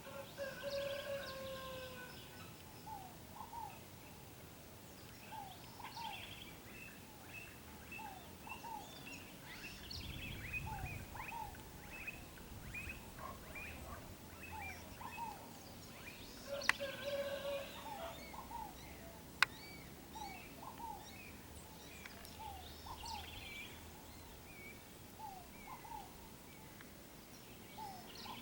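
Several birds singing together in the morning: many short, quick chirping notes repeated over and over, with a few longer held notes near the start and about two-thirds of the way through. Two sharp clicks come in the later part.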